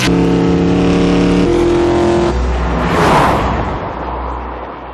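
Ford F-150 EcoBoost twin-turbo V6 running hard at high, steady revs, its pitch stepping about one and a half seconds in. The truck then rushes past about three seconds in and fades away.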